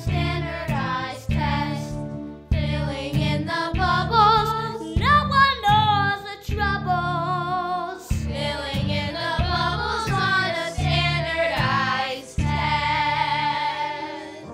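A group of children singing a musical-theatre song together, with instrumental accompaniment keeping a steady beat.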